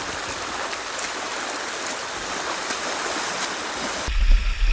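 Shallow creek rushing steadily over a stony riffle, an even hiss of moving water. About four seconds in it cuts abruptly to a low rumble.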